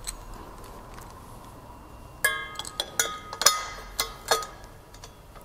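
Stainless steel still-column fittings clinking metal on metal, as the gasket and tri-clamp are worked onto the column joint. After a quiet first two seconds come about six sharp clicks over two seconds, each with a short metallic ring.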